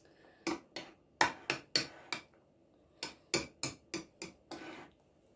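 A spoon tapping and clinking against a bowl while stirring sauce: a run of short sharp knocks, about three a second, with a brief pause around the middle.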